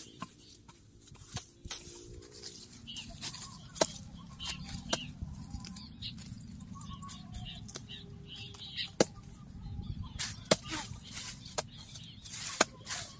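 A long-handled hoe chopping and scraping into weedy soil: a few sharp, irregular strikes, the loudest about nine and twelve and a half seconds in.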